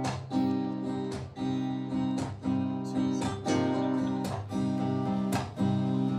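Guitar strumming chords in a steady rhythm, with accented strums about once a second: the instrumental intro of a live song.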